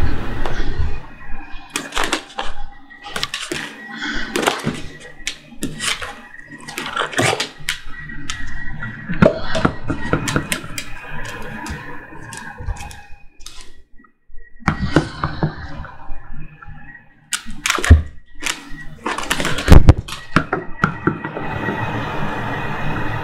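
A small dog playing with toys: irregular knocks, clicks and chewing noises as the toys are mouthed, dropped and pushed around, with a few louder knocks, one about 18 seconds in and one about 20 seconds in.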